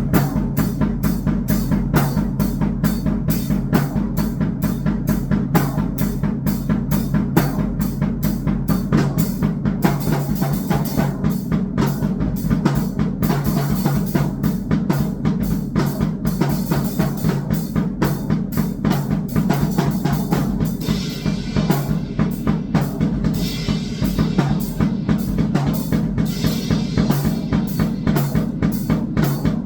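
Electronic noise music made of fast, dense drum hits, several a second, over a steady low drone. Patches of hiss come and go in the second half.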